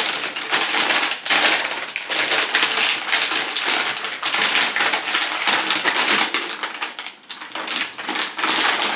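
Plastic bags and packets rustling and crinkling, with light taps and knocks, as they are handled and packed into a basket.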